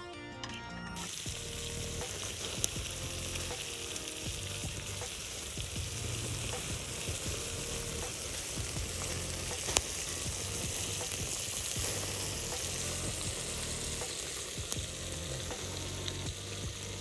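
Seafood sizzling in a kankan-yaki can over a wood fire: a steady hiss with a few sharp pops.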